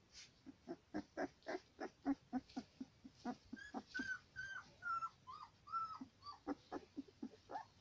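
Central Asian Shepherd puppy making short grunts, about three or four a second, with a run of high whines that rise and fall, each about half a second long, near the middle.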